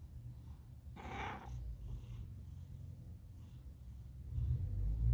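Tabby cat purring steadily, a low pulsing rumble that grows louder near the end, with a brief breathy noise about a second in.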